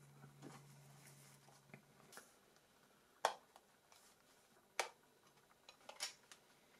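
Sharp small clicks and taps as the Nokia Lumia 900's internal press-fit connectors are pressed and snapped into place during reassembly: three distinct clicks with fainter ticks between them. A faint low hum stops about two seconds in.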